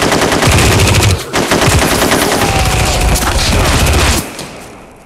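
Loud, sustained automatic gunfire: rapid shots in long bursts with a brief break a little over a second in. The firing stops abruptly about four seconds in and dies away.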